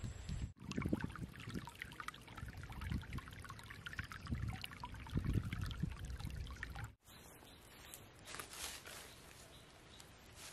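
Shallow stream water trickling and babbling over a sandy, stony bed, with many small splashes and some low rumble. It stops abruptly about seven seconds in, leaving only faint background sound.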